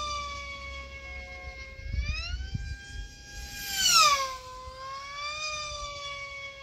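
Electric pylon-racing model plane's motor and propeller whine. The high tone rises, holds, then drops steeply and is loudest about four seconds in, as the plane sweeps close past the pylon.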